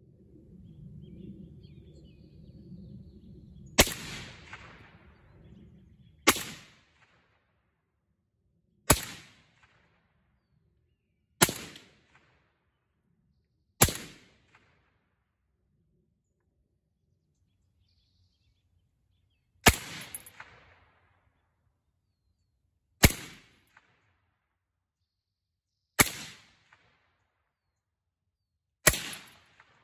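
Nine single semi-automatic shots from 7.62x39 AK-pattern rifles (a Zastava PAP M92, a Polish underfolder and an RPD) fitted with a Dead Air Wolverine suppressor, fired a few seconds apart, each a sharp crack with a short fading tail. A low rumble of handling noise runs under the first two shots.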